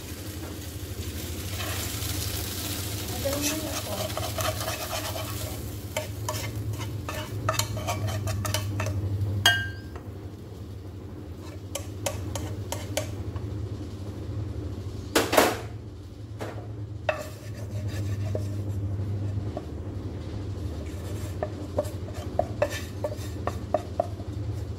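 Metal tongs scraping and clicking against a nonstick frying pan as fried onion and garlic are scraped out into a glass bowl. Light sizzling from the hot oil fades out over the first several seconds, and there is one sharp, louder clank about fifteen seconds in.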